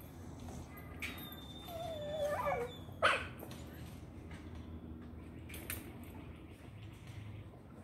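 A dog whining with a wavering pitch for about a second, then one short, sharp bark about three seconds in, the loudest sound.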